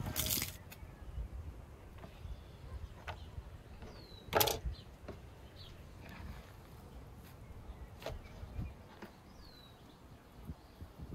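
Fresh dill and parsley bunches rustling as they are handled on a wooden board, with scattered small clicks and one brief louder handling sound about four seconds in. Two faint short high chirps are heard, one near the middle and one near the end.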